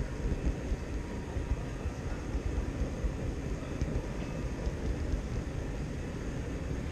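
Model train rolling along the rails, heard from a camera riding on the train: a steady low rumble of wheels on track with faint light ticks, over the background noise of a large exhibition hall.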